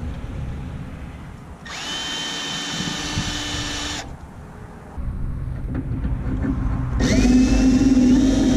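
Power drill boring out spot welds in sheet-metal body panels. It runs twice: the motor whines up to speed about two seconds in and holds for about two seconds before stopping. It starts again near the end with a rising whine under load.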